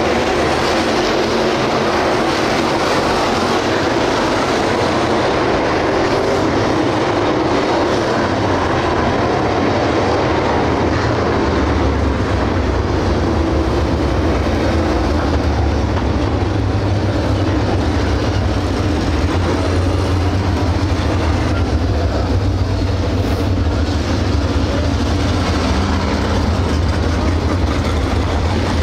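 A field of dirt late model race cars with GM 602 crate V8 engines running around the track in a steady, continuous engine drone. About twelve seconds in, a deeper, heavier rumble comes in as cars run closer.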